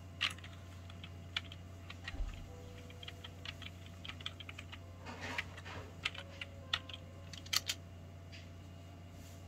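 Typing on a computer keyboard: irregular keystrokes entering a password, with a few louder presses near the start and in the second half. A steady low hum runs underneath.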